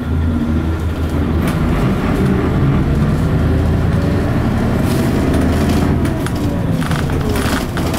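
Isuzu KC-LV city bus's V8 diesel engine running hard under load, heard from inside the cabin. Its whine climbs in pitch over the first five seconds or so and falls away in the last two, with a few rattles of the bus body.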